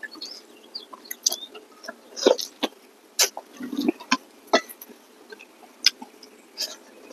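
Close-miked eating sounds of two people chewing rice and meat: an irregular string of sharp, wet mouth smacks and clicks, several a second.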